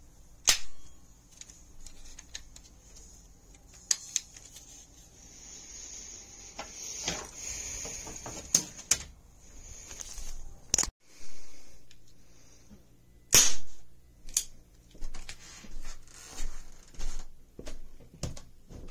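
Toy cap guns firing: sharp single cracks spaced a few seconds apart, the loudest about thirteen seconds in. Near the end comes a quicker run of softer cracks, about one a second.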